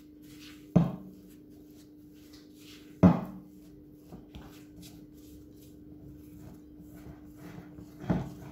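A silicone spatula scrapes and folds stiff biscuit dough in a glass bowl, with three sharp knocks of spatula and bowl about a second in, about three seconds in and near the end. A steady low hum runs underneath.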